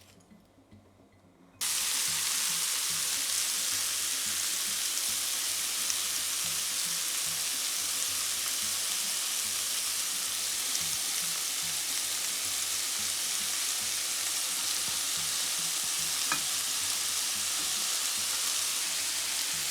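Sliced onions hitting hot oil in a pan about a second and a half in, then frying with a steady sizzle, with one faint click near the end.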